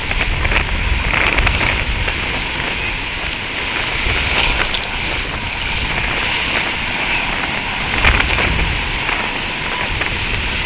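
Small ocean waves breaking and washing up the sand in a steady rush, with wind buffeting the microphone.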